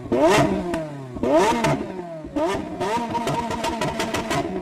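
An engine revved up sharply three times in quick succession, then held at high revs, falling off near the end.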